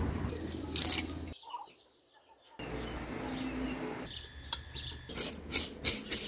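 Outdoor garden ambience with birds chirping, broken by a short gap of near silence about a second and a half in.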